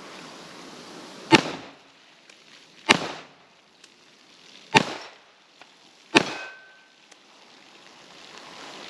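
Four shots from a Glock 21 Gen 4 pistol in .45 ACP, fired singly about a second and a half apart.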